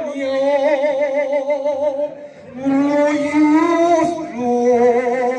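A man singing without words into a microphone, holding long notes with a strong vibrato, with a short break about two seconds in.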